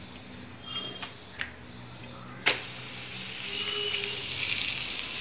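A rolled puran poli goes onto a hot oiled tawa with a sharp tap about halfway through, and from then on it sizzles steadily, the frying hiss growing louder toward the end.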